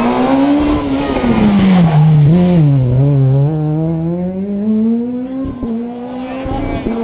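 Rally car engine working through a hairpin: the revs rise, then fall away with a brief blip as it slows for the bend, and then climb steadily as it accelerates out.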